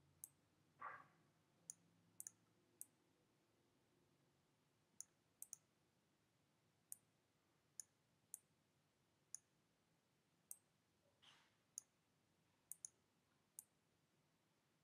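Computer mouse button clicking, about seventeen sharp, irregularly spaced clicks as stars are picked and dragged into place on screen, with two faint short rustles, one about a second in and one near eleven seconds.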